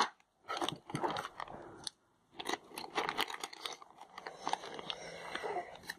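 Crinkling and crackling of a plastic toy blind-bag packet being pulled open and handled, in two stretches of irregular crackle with a short pause between.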